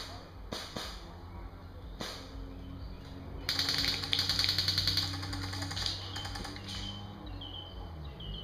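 Airsoft electric gun firing a long full-auto burst of about two and a half seconds, a rapid run of clicks, after a few single sharp cracks. Birds chirp briefly near the end.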